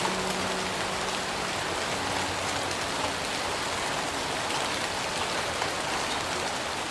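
Steady, even hiss of water, like rain or running water, filling the sound. Under it, faint notes of a Martin OOO-28 acoustic guitar ring out and fade, one at the start and another about two seconds in.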